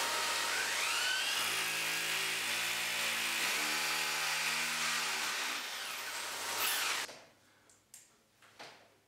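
Power drill boring into a concrete ceiling, running steadily with its motor pitch shifting a couple of times, then stopping suddenly about seven seconds in.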